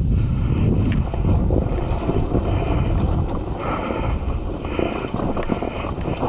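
Off-road motorcycle engine running under throttle, with wind buffeting the microphone.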